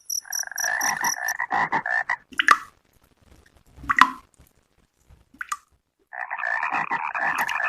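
Frogs croaking in a dense, fast-pulsing chorus that stops about two seconds in. A few single sharp calls or plops break the pause, and the chorus starts up again about six seconds in. A high rhythmic chirping runs under the chorus for the first second or so.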